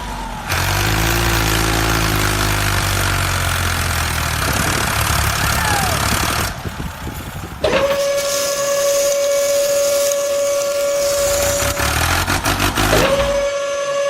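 Loud hissing noise over a low rumble, then a long steady whistle tone that starts with a quick upward scoop and holds for about four seconds, breaks off, and sounds again near the end.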